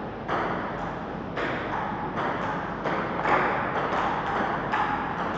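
Table tennis rally: the celluloid ball clicking off paddles and the tabletop in a quick, uneven run of sharp ticks, a few a second, echoing in a large hall.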